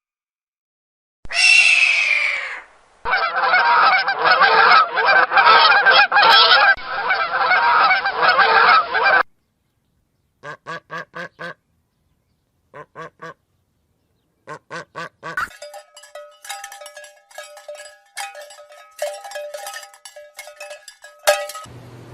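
Fowl honking loudly, goose-like, in several separate stretches with silences between them: a long dense stretch, then short groups of quick honks.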